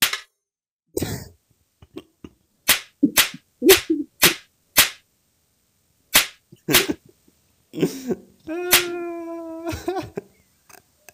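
A run of sharp slaps, about ten spread over eight or nine seconds, as a cat swats at a rat. Near the end a pitched, voice-like tone is held for about a second.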